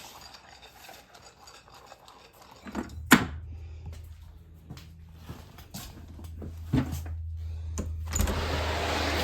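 A sharp knock about three seconds in, then a few lighter clicks and clatters over a low steady hum; near the end a steady hiss comes in.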